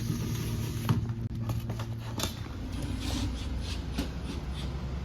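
Steady low machinery hum with scattered clicks and knocks of handling, a few seconds apart.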